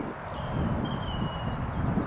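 Wind buffeting the microphone with a low, irregular rumble, while small birds sing thin, high whistled notes: one at the start and a longer one from about half a second to a second and a half in.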